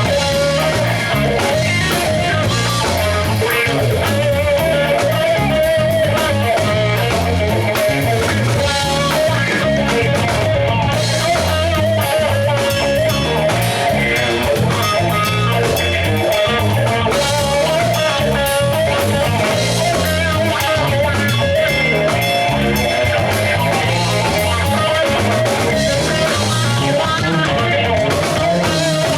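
Live band playing a blues-rock groove, with electric lead guitar over bass and drums.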